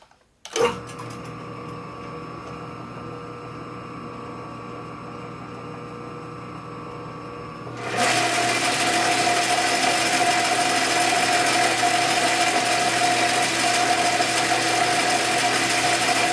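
Metal lathe switched on with a click about half a second in, its motor and headstock gears running steadily. About eight seconds in it turns much louder and harsher with a steady whine, as the tool takes a light cut of a couple of thousandths on the spinning part.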